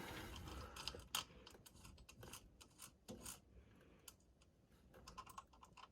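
Faint, scattered clicks and small scrapes from hands adjusting a car radio's mounting hardware. The clicks are irregular and thin out toward the end.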